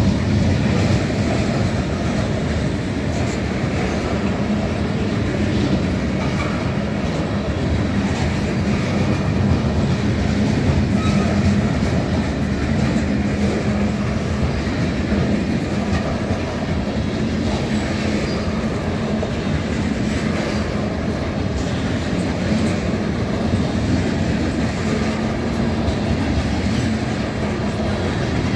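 Covered grain hopper cars of a freight train rolling past: the steady, even noise of steel wheels running on the rails.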